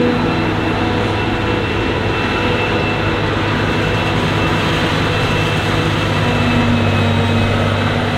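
Heavy diesel farm machinery working a maize silage harvest, running steadily with a thin high whine over a deep engine note.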